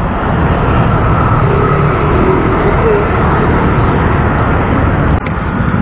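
Steady road traffic noise with a heavy low rumble from passing vehicles, and a short click about five seconds in.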